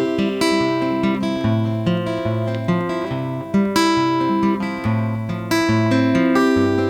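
Instrumental passage of a folk song: acoustic guitar strummed, with a new chord struck about once a second.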